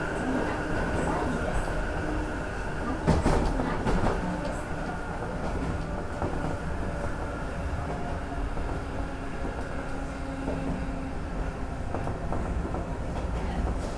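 Randen (Keifuku Electric Railroad) tram car running along the track, heard from inside the car: a steady motor hum and wheel rumble, with a few sharp clacks from the wheels on the rails about three to four seconds in.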